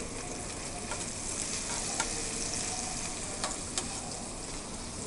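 Diced food sizzling gently in fat in a stainless steel sauté pan while it is stirred with a spoon and fork, with a few clicks of the utensils against the pan.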